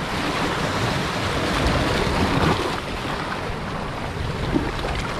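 Sea surf washing steadily against shoreline rocks, with wind buffeting the microphone.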